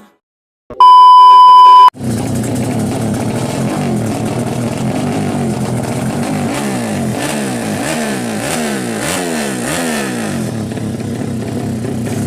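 A loud steady beep lasting about a second, then racing motorcycle engines running, revved up and down in quick repeated blips from about four to ten seconds in.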